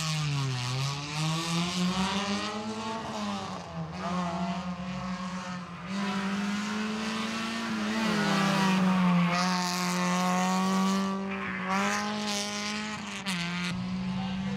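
Suzuki Swift rally car engines at hard revs, held high with several dips and climbs in pitch as the cars are driven through the stage.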